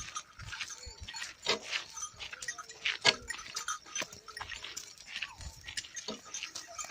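Short animal calls repeated at irregular intervals, the sharpest about three seconds in.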